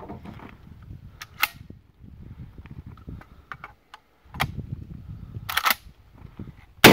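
Metallic clicks and clacks from a magazine-fed shotgun being handled, its box magazine and action worked, with a few separate sharp clacks and a quick cluster of them. A much louder sharp crack comes right at the end.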